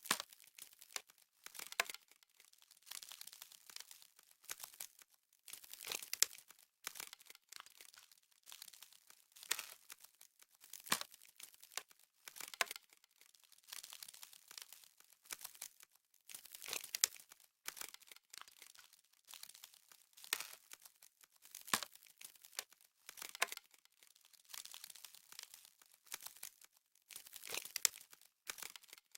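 Frozen, frost-hardened snow crunching in irregular crisp bursts, one every half second to two seconds, each a dry crackle.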